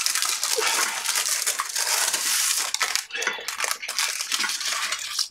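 Dry crinkling and crackling of baking paper and a crisp baked flammkuchen as they are handled and laid onto a plate.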